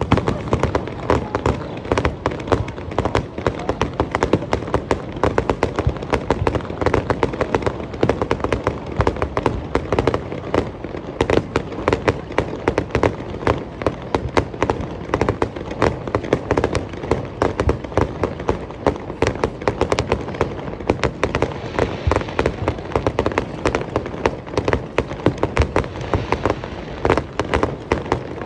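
Fireworks display going off in a rapid, continuous barrage of bursts and crackles, many sharp bangs a second.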